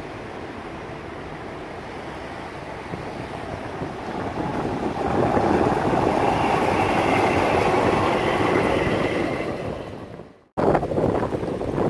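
Vienna tram approaching and passing close by: its wheels rolling on the rails build up, loudest for about four seconds, with a steady high tone over the rolling noise. It fades and cuts out near the end, followed by gusty wind on the microphone.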